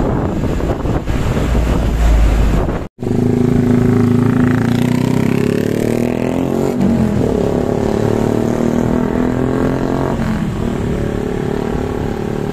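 Wind rumbling on the microphone for about three seconds, then an abrupt cut. After it comes a large bus's engine running close by, a steady drone that rises and falls a little in pitch.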